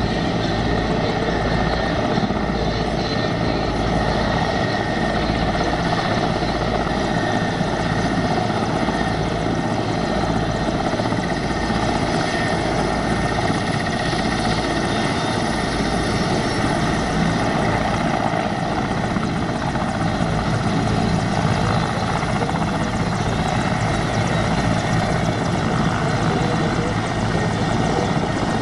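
Helicopter running, a steady loud mix of turbine and rotor noise with a pulsing low throb throughout.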